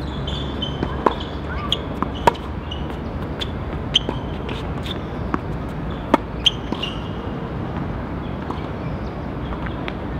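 Tennis balls being hit by rackets and bouncing on the court: a string of sharp pops at uneven intervals, most of them in the first seven seconds, over a steady low rumble.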